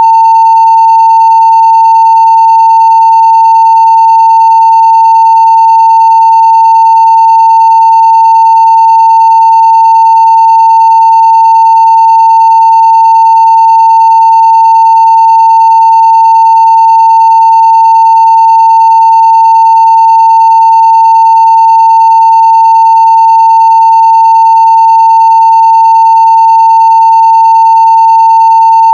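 Steady 900 Hz sine-wave test tone at full level (0 dB), held unbroken and unchanging.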